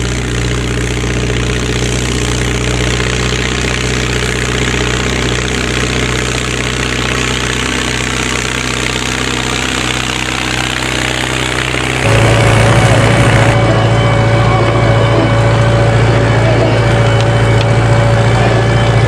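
Straight-piped Ford 7610 tractor's four-cylinder turbo diesel running steadily while pulling a level bar across tilled soil. About twelve seconds in, the sound jumps louder and a steady whine joins the engine note.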